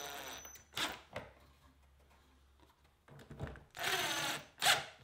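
Cordless driver driving wood screws through a wooden strip into plywood, in short runs with pauses: one run ends about half a second in, two brief blips come around one second, a longer run starts a little before four seconds, and a quick final burst follows.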